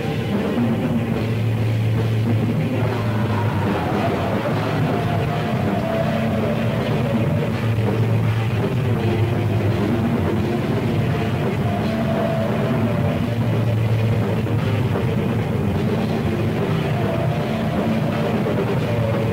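Raw black metal with a lo-fi, old-tape sound: a dense wall of distorted guitar and drums under held keyboard notes that change every couple of seconds.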